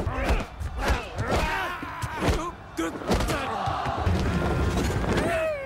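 Film fight sound mix: a run of hard punch and body-impact thuds, with shouts and grunts over a music score.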